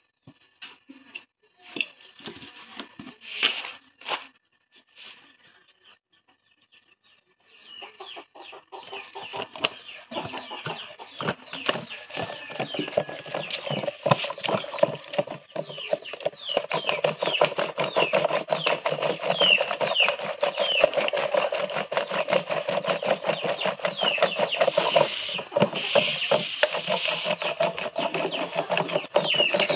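Cream being churned with a wooden stick in a plastic jar, a fast run of sloshing, knocking strokes that starts about eight seconds in, after a few handling clicks. The cream is being churned into butter for ghee.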